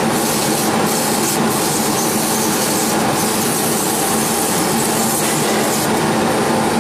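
130 W CO2 laser cutting machine running as it cuts carpet: a loud, steady rushing hiss with a faint hum underneath.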